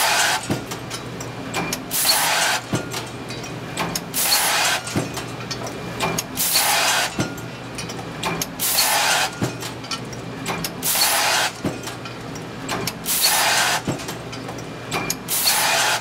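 Cold-forging transfer press cycling steadily, about once every 2.2 seconds. Each stroke brings a half-second burst of hiss followed by a sharp knock, over a steady low machine hum.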